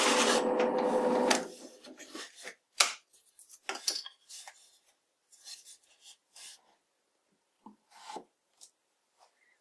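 Benchtop drill press running with a Forstner bit in a pine board, its motor hum stopping about a second and a half in. Then scattered wooden knocks and rubbing as the board is handled, with a plastic hose being pushed into the drilled hole near the end.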